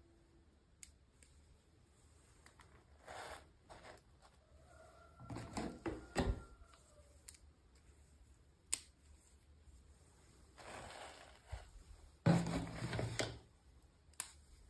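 Close-up handling noises of unboxing: short bursts of rustling and scraping packaging, with a few sharp plastic clicks in between.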